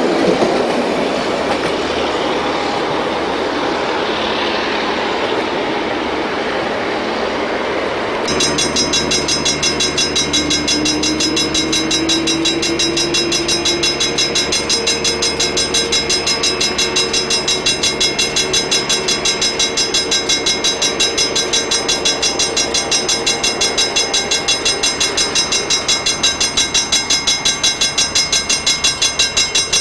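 A train running on the line, its noise slowly fading. About eight seconds in the sound changes abruptly to a steady rhythmic pulsing, about four to five beats a second, that carries on.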